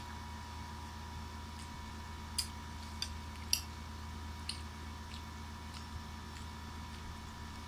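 A metal spoon clinking and scraping against a ceramic plate several times as food is scooped up, over a steady low hum.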